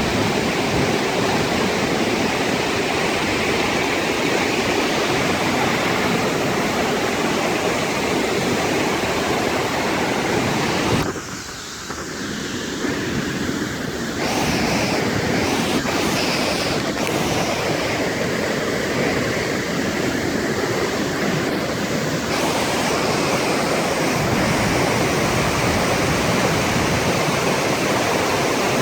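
Flash-flood water rushing over a canyon waterfall and down the wash, a loud, steady rush of water that dips for a few seconds about eleven seconds in.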